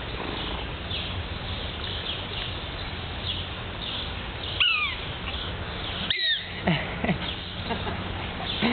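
Prairie dog barking: two sharp, high chirps that fall in pitch, about a second and a half apart, followed by a few fainter lower calls.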